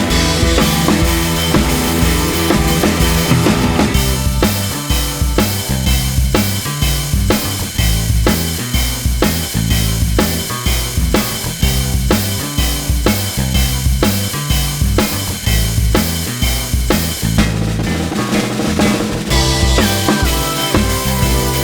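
Background music with a steady drum-kit beat: kick and snare drum over a repeating bass line.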